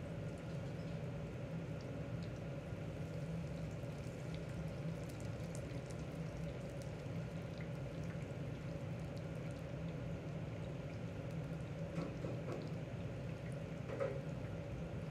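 Liquid bubbling steadily in cooking, over a steady hum, with a few faint clicks near the end.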